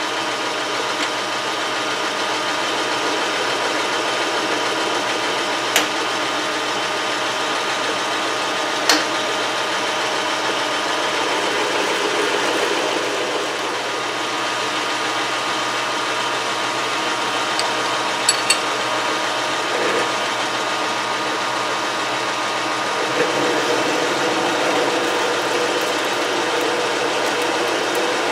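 Metal lathe running steadily, its motor and gear train humming, with a few sharp clicks. Near the end a twist drill in the tailstock chuck is fed into the turning workpiece.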